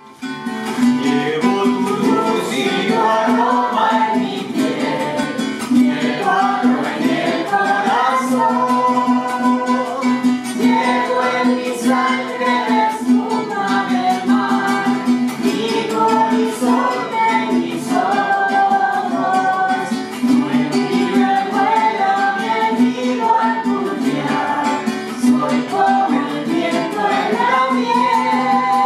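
An acoustic guitar strummed in a steady rhythm, accompanying voices singing a Latin parranda-style song.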